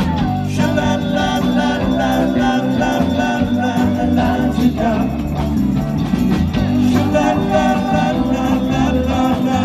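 Live band playing an instrumental passage with a steady beat.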